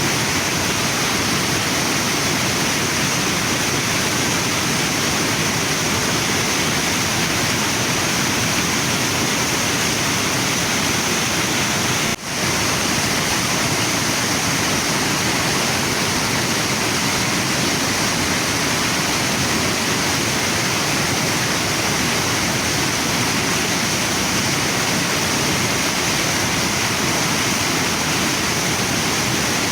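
Waterfall and river water rushing steadily, with a momentary dip in level about twelve seconds in.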